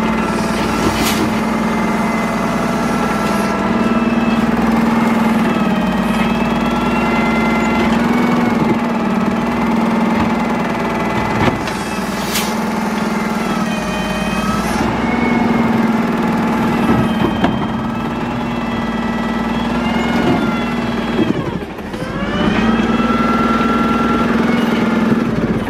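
Engine of a Freightliner M2 garbage truck running under load, with a hydraulic whine that rises and falls as the Labrie Minimax side cart tipper lifts and dumps green-waste carts into the hopper. Two sharp knocks come about a second in and near the middle. About three quarters of the way through, the engine sound dips and then picks back up.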